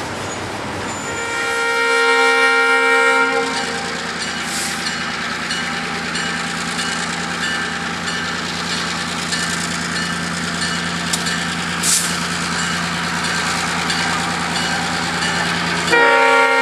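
Diesel switcher locomotive approaching. Its multi-chime air horn sounds one long blast about a second in and starts again near the end, with the engine running steadily in between.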